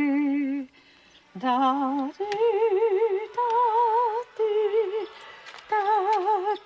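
A woman's voice singing a slow wordless melody: about six long held notes, each with a wide, even vibrato, separated by short breaths.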